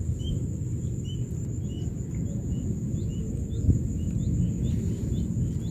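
Rural outdoor ambience: short bird chirps repeating about twice a second over a steady, high-pitched insect drone, with a low background rumble and one brief knock about two-thirds of the way through.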